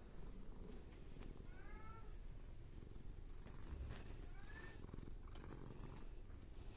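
A cat purring steadily, with two short, high, arched mews, about one and a half seconds in and again near five seconds.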